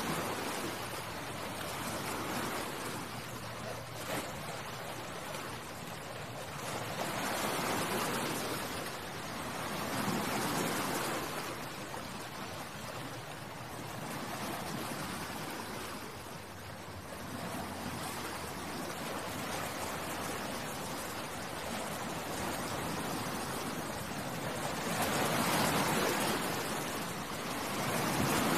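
Sea waves washing onto the shore and drawing back, a steady hiss that swells and eases every few seconds.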